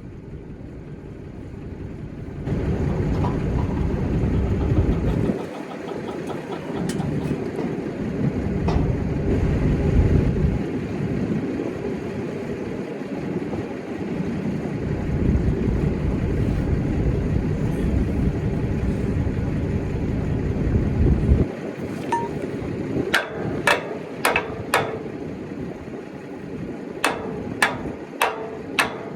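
A steady low rumble, then a hammer striking the steel of a disc harrow in two quick runs of about five ringing blows each, near the end.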